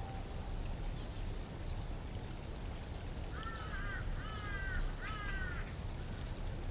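A crow cawing three times in quick succession, each caw harsh and slightly falling, over a low steady background hum.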